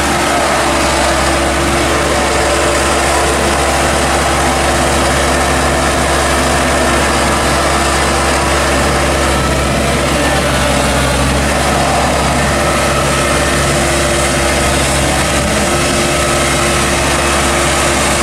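Iseki rubber-tracked tractor's diesel engine running steadily while the tractor crawls along a dirt path, one even engine note with no revving.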